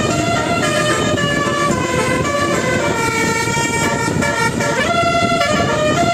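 Indonesian 'telolet' bus horn, a set of twelve-note trumpet horns, playing a tune in held notes that step from pitch to pitch, with one note sliding up about five seconds in. A low rumble runs underneath.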